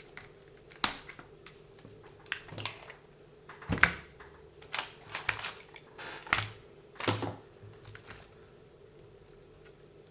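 Irregular clicks and knocks of small tools and parts being handled while an RC car is taken apart on a workbench, a dozen or so sharp taps scattered through, the loudest near the middle.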